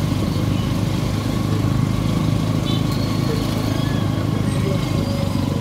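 Small motorcycle engine running steadily at low speed in slow traffic, a constant low rumble heard from on the bike.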